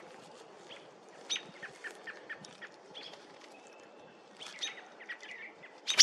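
Birds chirping: many short scattered chirps, a brief steady whistled note near the middle, and a louder burst of chirps at the very end.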